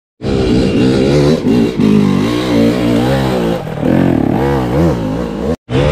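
Motorcycle engine revving, its pitch rising and falling again and again, cut off briefly near the end.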